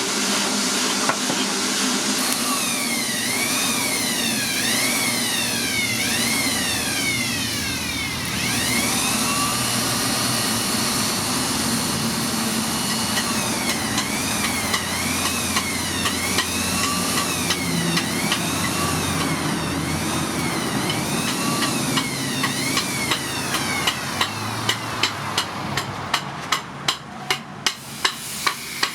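Power grinder working steel, its whine rising and falling about once a second as the load changes. In the last few seconds, hammer blows on metal come about twice a second.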